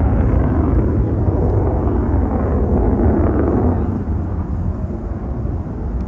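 Loud, low rumble of a USAF F-35A Lightning II's single Pratt & Whitney F135 turbofan in flight, easing off slightly after about four seconds.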